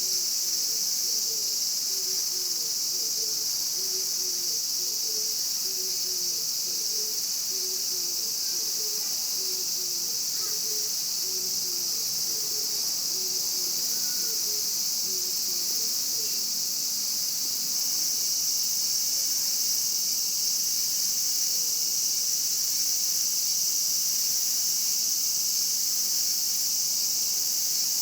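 Japanese cicadas buzzing in a steady, unbroken high drone. A faint series of short low notes, about two a second, runs beneath it through the first half.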